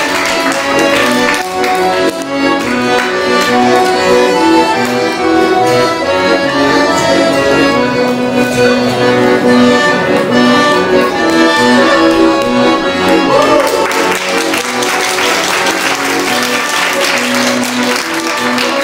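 Accordion playing a tune, a continuous melody of steady held notes.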